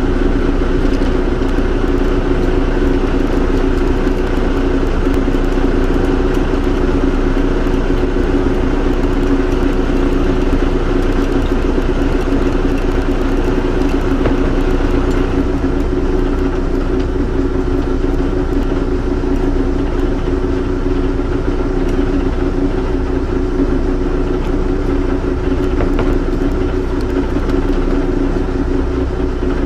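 Fishing boat's engine running steadily while trolling, an even drone with a constant low hum that does not change.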